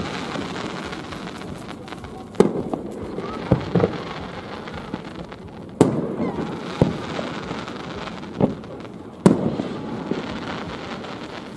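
Aerial firework shells bursting: four loud booms about three seconds apart, each trailing off in a long rolling echo, with lighter pops in between.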